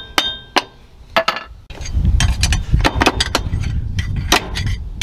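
Metal-on-metal knocks and clinks as a pry bar works the front drive shaft flange off the transfer case: a run of sharp, irregular strikes, with a low rumble joining about two seconds in.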